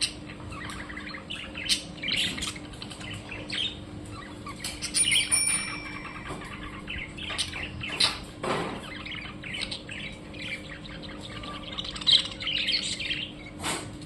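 Small birds chirping and tweeting in quick, repeated calls, with a few sharp clicks among them and a faint steady hum underneath.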